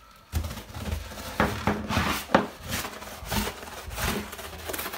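Brass-bristle brush scrubbing wet ceramic tile and grout in quick, continuous back-and-forth strokes, starting about a third of a second in, working acid cleaner into soap scum and mildew.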